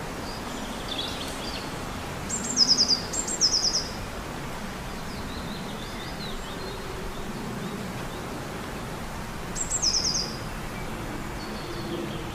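Outdoor ambience with a steady hiss and small birds calling. Three short quick runs of high notes come twice in quick succession about two and a half seconds in and once more near ten seconds, with fainter chirps between them.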